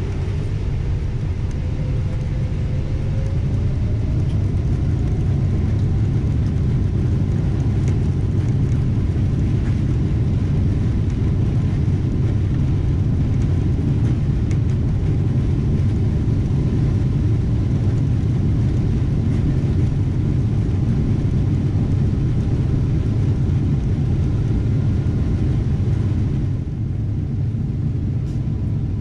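Steady low rumble of a Boeing 777-300ER's GE90 engines and rushing air, heard inside the passenger cabin. It grows a little louder a few seconds in.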